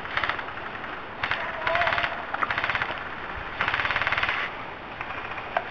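Airsoft rifles firing full-auto bursts, a fast rattling chatter of shots. There are about four bursts; the longest runs nearly a second, starting about three and a half seconds in.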